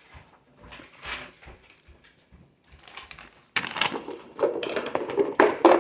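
Scattered light clicks and taps, then from about three and a half seconds in a louder run of rustling and clattering handling noise.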